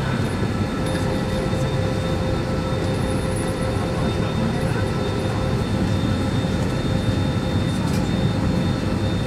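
Steady low hum of an Airbus A320 cabin standing at the gate, from the air-conditioning and ventilation, with a few faint steady whining tones over it.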